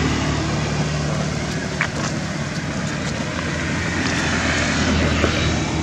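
Steady low engine-like hum under a constant outdoor noise, with a brief high chirp about two seconds in.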